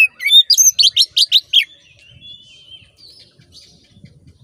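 Oriental magpie-robin singing: a fast run of loud, sharp, sweeping notes for the first second and a half or so, then softer, quieter warbling and thin whistles.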